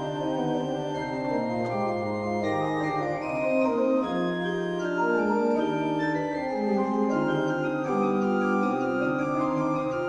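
Pipe organ playing classical music, several held lines moving at once.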